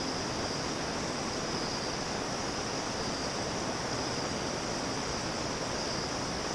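Moss Emperor ceiling fan running steadily, an even whooshing hiss with no change, under a constant high-pitched insect drone.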